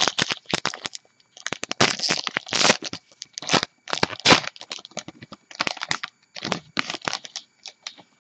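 Crimp-sealed wrapper of a 2014 Topps Gypsy Queen baseball card pack being torn open and crumpled in the hands: a dense run of sharp crackles and crinkles.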